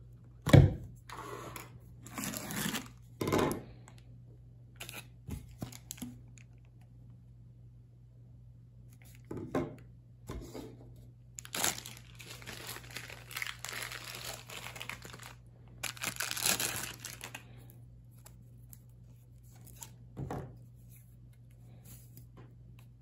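Packaging handled as a rifle barrel is unpacked from a cardboard mailing tube, plastic bag and mesh sleeve. There is a sharp knock about half a second in, then repeated plastic crinkling and tearing, longest from about twelve to seventeen seconds in.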